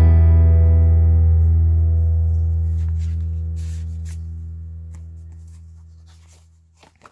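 Background music: one low held chord rings and slowly fades out over about seven seconds. Faint paper rustling comes partway through as a card is handled.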